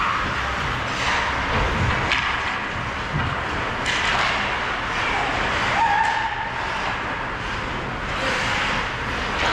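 Ice hockey play heard from a skating player: skate blades scraping and carving the ice under a steady rush of noise, with a few sharp stick or puck clacks.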